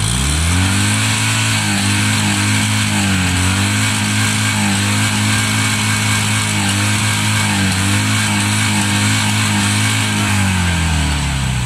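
Fiat 126p's exhaust as its engine is revved up quickly and held at one steady high pitch for about ten seconds, then let back down near the end.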